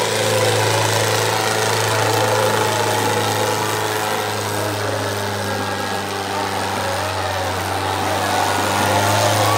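Tractor diesel engines running flat out under heavy load as two tractors pull against each other in a tug-of-war: a steady, unbroken engine drone.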